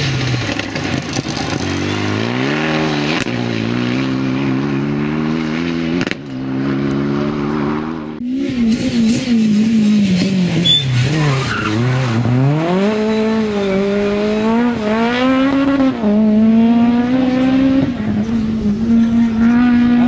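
Rally car engines at full throttle, first a Renault Mégane RS, then, after about eight seconds, a Peugeot 306 Maxi. Each climbs through the gears, the pitch rising in steps with short dips at each shift. A few seconds after the change the Peugeot's engine drops low as it lifts off for a corner, then revs back up through several shifts.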